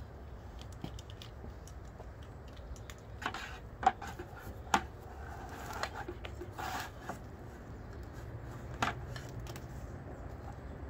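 Handling noise from a rubber hose being pulled out of a plastic bucket and laid on concrete: scattered sharp clicks, knocks and rubbing, two louder clicks around four to five seconds in and another near the end, over a low steady rumble.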